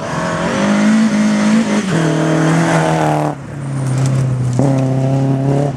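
BMW E30 M3 rally car's four-cylinder engine at high revs, the pitch climbing and then dropping at a gear change about two seconds in. The sound falls away briefly just after three seconds and returns at steady revs.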